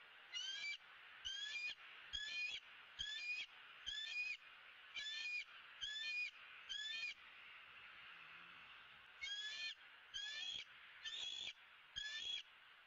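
A bird calling in a steady series of short, high, repeated calls, about one a second: eight calls, a pause of about two seconds, then four more.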